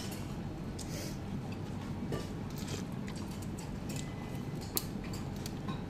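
Someone eating a bowl of ramen: short scattered noisy strokes of noodles being lifted and slurped and utensils moving in the bowl, with one sharp clink of a utensil on the bowl near the end, over a steady low background hum.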